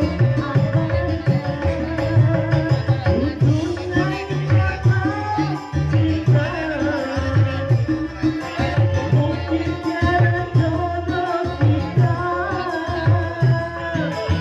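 Instrumental stretch of an Indonesian song: hand drums keep a busy, steady beat under a wavering melodic lead, with no sung words.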